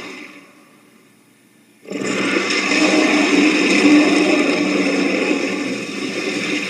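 Creature roar sound effect: the end of one roar fades out, then about two seconds in a second long, rough roar starts and holds steady for most of the rest.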